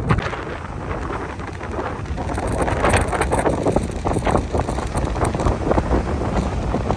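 Gusty hurricane wind buffeting the microphone with a heavy low rumble, over the wash of rough surf. The wind grows louder after a couple of seconds.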